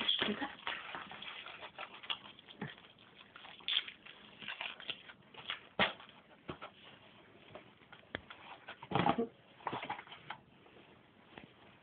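A dog snuffling and nosing into a small cardboard chocolate box, which rustles and scrapes in irregular short bursts as it pushes at it. The longest, loudest rustle comes about nine seconds in.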